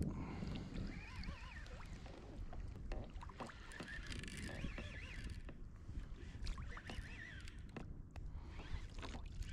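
Water sloshing and lapping around a fishing kayak, with scattered small clicks and a few faint wavering high-pitched tones.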